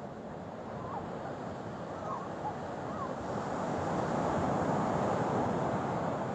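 Ocean surf hissing and washing, swelling to a peak near the middle then easing back, like a wave rolling in. A few short, faint chirps are heard in the first half.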